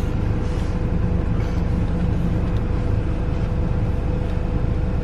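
A vehicle engine idling steadily: a constant low rumble with a steady hum over it.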